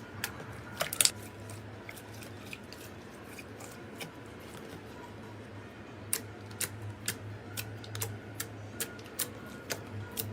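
Slime being handled close to the microphone: a run of sharp, irregular clicks and pops, sparse at first and coming about two or three a second from roughly the middle on, over a faint steady low hum.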